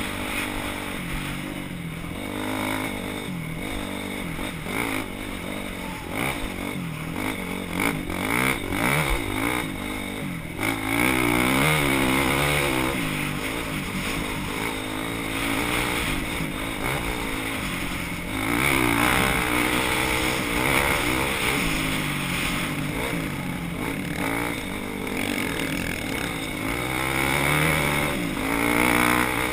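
Off-road motorcycles racing on a scramble course, engines revving up and down in pitch as they accelerate and ease off, at times several at once.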